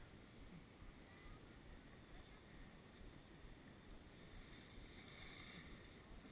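Near silence: faint wind rumble on the microphone.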